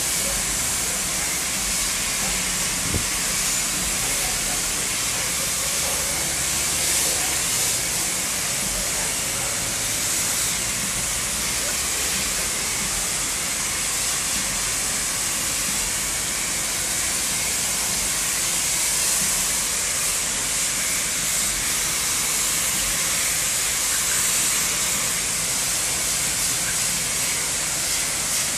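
Self-service car wash pressure-washer wand spraying a steady high-pressure jet of water onto a control panel: a continuous hiss with the spatter of water striking the panel.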